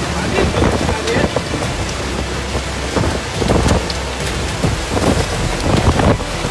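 Heavy storm rain pelting down, with many sharp patters of drops striking a surface.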